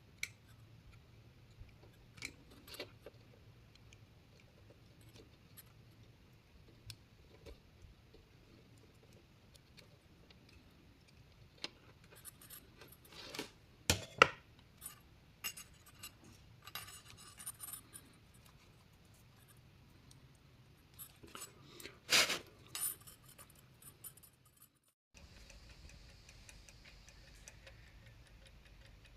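Scattered light clicks and metallic clinks of small tools and parts handled on a workbench, with two louder bursts of clinking in the middle and later on. Near the end the sound cuts out briefly and is followed by a steady low hum.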